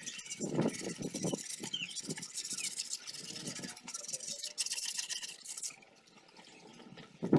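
Sandpaper rubbed by hand over body filler on an incubator box, in quick, irregular back-and-forth strokes. The rubbing goes quieter for a moment near the end.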